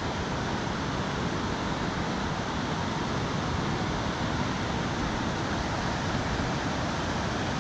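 Elwha River whitewater rushing through the rapids below, a steady, even rush with no breaks.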